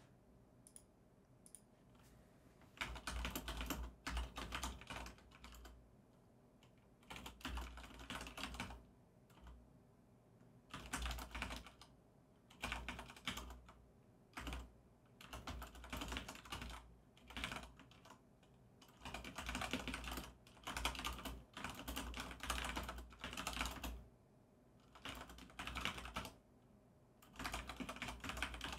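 Typing on a computer keyboard: runs of rapid key clicks, each a second or two long with short pauses between them, starting about three seconds in.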